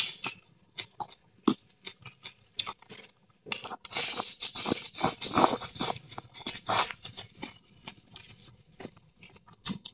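A person slurping instant noodles off chopsticks, a run of wet sucking slurps starting about three and a half seconds in and lasting about three seconds. Soft chewing clicks come before and after.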